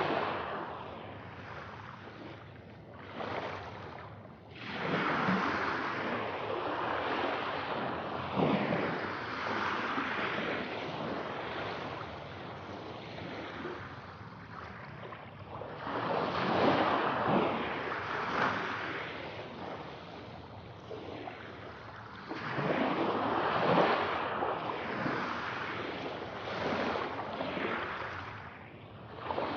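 Ocean waves breaking and washing on a shore, surging in swells every few seconds and ebbing back between them.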